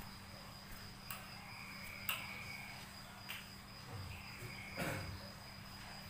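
Faint, steady high-pitched cricket-like ringing. Over it come a few soft clicks and rustles from a caged bulbul shaking its feathers and shifting on its perch.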